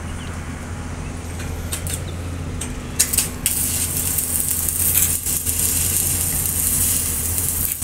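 Sany crawler excavator's diesel engine running steadily, with a few sharp knocks. About three seconds in it becomes louder and a strong hiss joins it.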